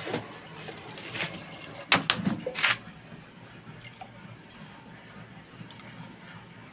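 Cooking clatter at an aluminium pressure cooker: liquid poured in from a steel pot, then a steel spoon clinking against the cooker as spices are added to the dal. The loudest is a quick cluster of clinks about two seconds in.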